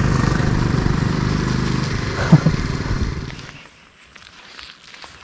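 Motorcycle engine running with an even, pulsing beat, then dying away about three and a half seconds in, leaving near quiet with faint rustles.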